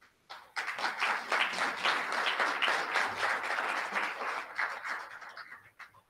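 Audience applauding. The applause starts about half a second in and tapers off near the end.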